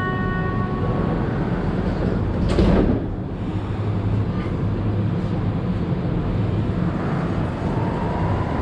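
Interior of a rubber-tyred Montreal Metro Azur car: the last notes of the door-closing chime ring out. A brief whoosh follows about two and a half seconds in, then the train's steady running rumble. Near the end a faint motor whine slowly rises as the train starts to pull away.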